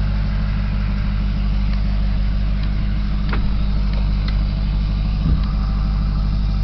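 Ford Super Duty pickup's engine idling steadily, heard from inside the cab, still on a raised cold-start idle. There is a brief thump about five seconds in.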